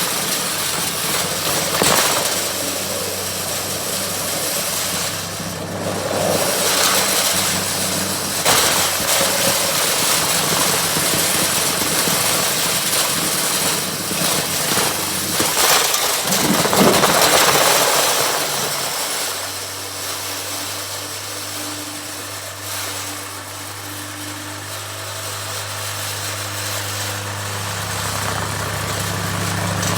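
Riding lawn mower engine running steadily. About sixteen seconds in, a louder rush of noise swells and fades, then the engine settles to a quieter, steady low hum that grows louder again near the end.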